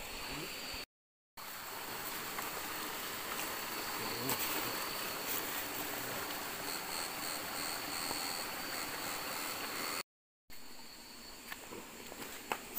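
Stream water running over rocks: a steady rushing hiss with a thin, steady high-pitched tone above it. The sound cuts to silence twice, briefly, about a second in and near ten seconds in.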